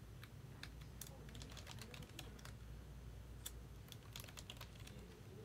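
Faint, irregular clicking of typing on a computer keyboard.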